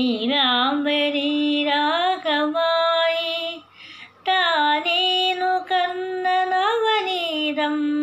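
A woman singing a Malayalam film song unaccompanied. She sings two long phrases of held notes with gliding ornaments, with a short break for breath about four seconds in.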